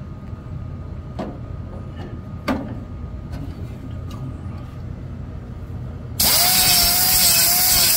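Handheld grinder switched on about six seconds in, running with a loud hiss and a wavering whine for under two seconds as it grinds the steel cab corner patch panel, then winding down in a falling whine. Before it, a few light knocks.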